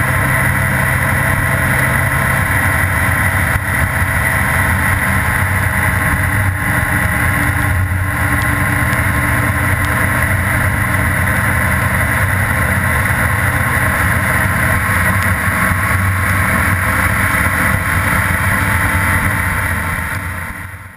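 Honda Gold Wing GL1800's flat-six engine running at a steady cruise, under a steady rush of wind and tyres on the wet road. The sound fades out near the end.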